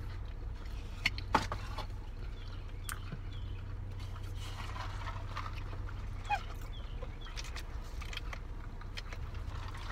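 Chewing and mouth noises of people eating fish sandwiches, with a few sharp clicks about a second in and again near three seconds, over a steady low hum in a car cabin. Faint short high chirps come and go.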